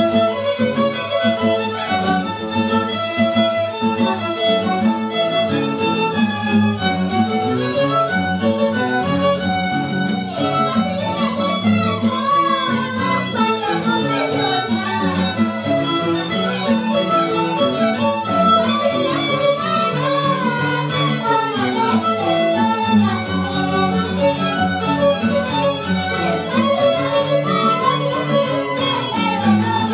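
String band playing: two violins carry the melody over strummed acoustic guitars and a small mandolin-like instrument, without a break.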